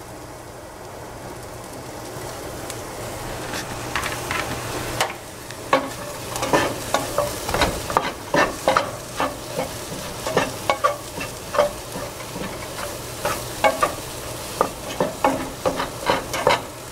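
Sliced mushrooms sizzling in a hot non-stick frying pan with onions and garlic, the sizzle building over the first few seconds. From about five seconds in, a wooden spatula stirs and scrapes them, knocking against the pan about twice a second. A steady low hum from the range-hood vent fan runs underneath.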